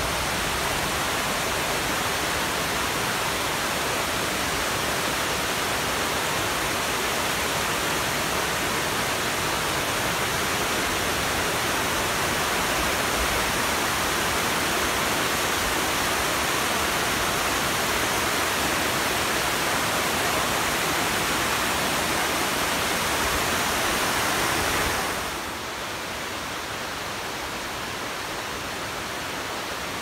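Bousra Waterfall's cascade: a steady rush of water pouring over the falls and rocks. It drops noticeably quieter near the end.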